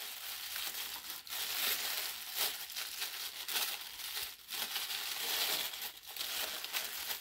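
Thin paper wrapping crinkling and rustling as it is pulled out of a box and unfolded by hand, the handling going on without a break.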